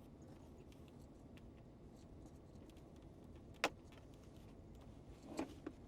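Faint steady background hiss with one sharp click about three and a half seconds in, then two softer knocks near the end.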